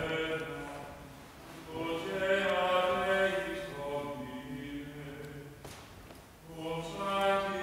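Slow singing in long held notes, dipping briefly about a second in and breaking off for a moment around six seconds before going on.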